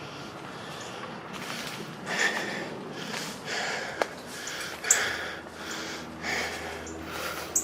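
Footsteps crunching through leaf litter and brush, with branches and leaves rustling against the walkers, in an uneven rhythm of roughly one or two steps a second.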